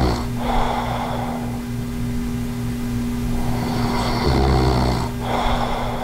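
A man with sleep apnea snoring in his sleep: one heavy snore right at the start and another about four seconds in, with noisy deep breaths around them. A steady low hum runs underneath.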